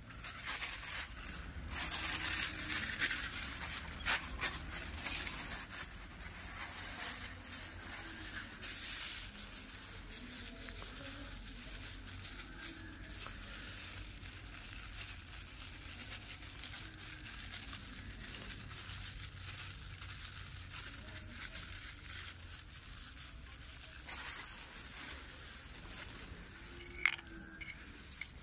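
Thin black plastic bag crinkling and rustling as it is handled and folded, loudest in the first several seconds and fainter afterwards. A sharp click about a second before the end.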